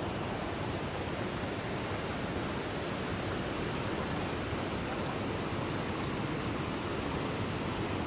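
Steady, even rush of water tumbling over the rock ledges of a waterfall and its cascades.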